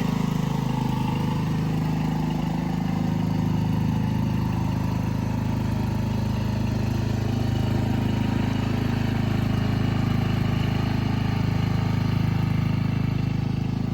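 Riding lawn mower's small engine running steadily at an even speed while the mower drives and cuts grass.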